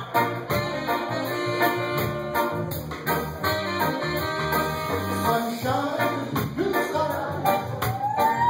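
Live rocksteady band playing in a steady beat: saxophones, electric guitar, keyboard and drums. A singing voice comes in near the end.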